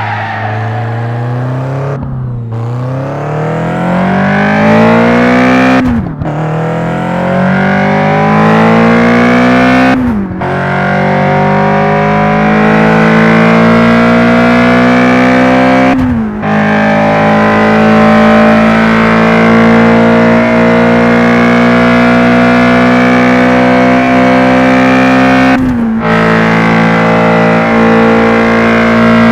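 Toyota 4A-GE 1.6-litre inline-four engine accelerating hard through the gears. The pitch climbs in each gear and drops sharply at each of five upshifts, and each gear is held longer than the last.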